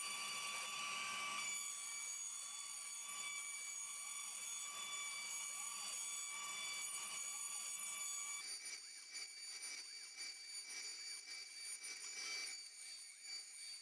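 CNC router spindle running with a steady high-pitched whine while its bit cuts wooden parts. The tone pattern shifts about a second and a half in, and the sound drops quieter and thinner about eight and a half seconds in.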